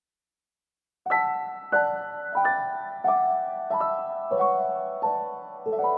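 Background music starting about a second in: a slow piano melody, single notes struck one after another, each ringing and fading.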